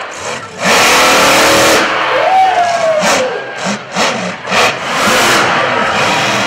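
Monster truck engine revving hard: a long full-throttle burst about half a second in, then a run of quick throttle blips about half a second apart, and another sustained rev near the end.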